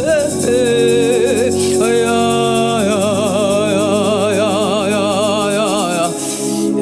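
African gospel praise-and-worship music: a voice sings long held notes with a wavering vibrato over a steady, sustained accompaniment.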